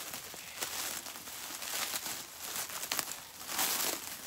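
Plastic cling wrap crinkling and rustling as it is pulled and peeled off by hand, with a louder stretch near the end.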